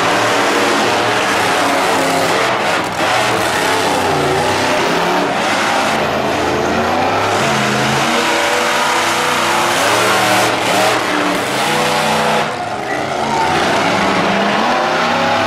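Monster truck engines revving loudly while racing, the pitch climbing and falling again and again as the trucks accelerate and lift off.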